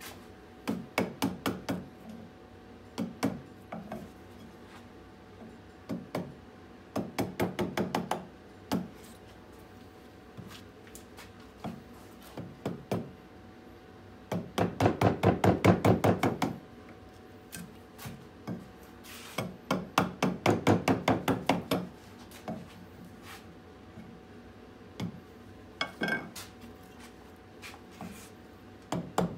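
Wooden carving mallet tapping a gouge into a birch bowl blank, in quick runs of blows, several a second, with pauses between. The longest and loudest runs come about halfway through and again a few seconds later.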